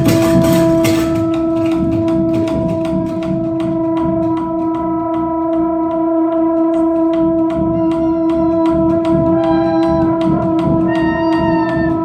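Trombone holding one long, steady note in improvised music, while percussion keeps up a fast run of light clicks. From about two-thirds of the way in, short higher tones come and go over the held note.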